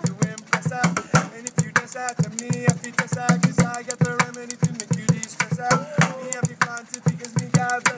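Bucket drumming: sticks beating a fast, steady rhythm on upturned plastic buckets, deep low thuds mixed with sharp, bright clicks, several strokes a second.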